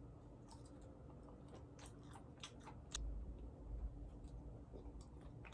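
A person biting and chewing a sotteok skewer of chewy rice cake and small sausages, with scattered soft mouth clicks. There is a dull low bump about three seconds in.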